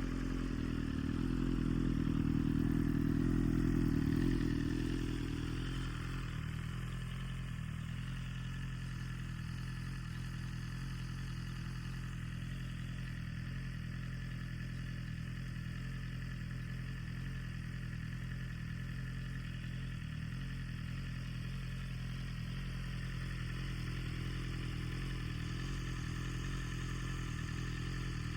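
BMW M 1000 RR inline-four superbike engine idling through an Akrapovic Evolution Line titanium full exhaust, just after start-up. The idle runs higher and louder for the first five seconds or so, then drops and settles into a steady idle.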